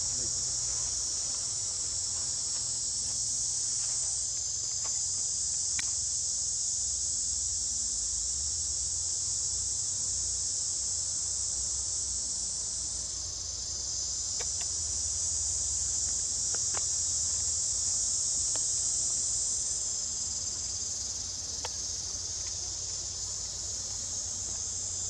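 A steady, high-pitched chorus of insects, with a few faint ticks here and there.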